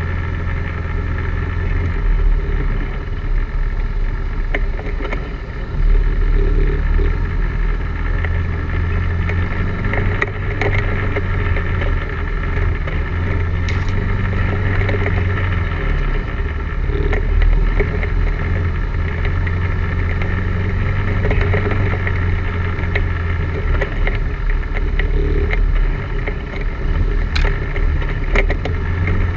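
ATV engine running steadily under load as the quad is ridden up a rough dirt trail, with short knocks and rattles now and then.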